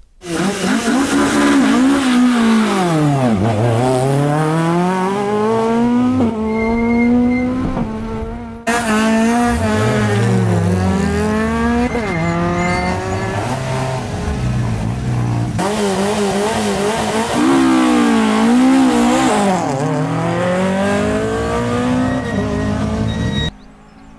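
Rally car engines, a Mk2 Ford Escort among them, revving hard and accelerating, the pitch climbing and dropping again as they change up through the gears. It comes in separate clips joined by sudden cuts, and goes quieter near the end.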